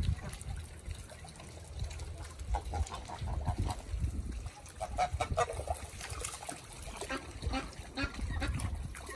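Domestic geese giving a run of short calls while they splash and dip their heads in shallow floodwater.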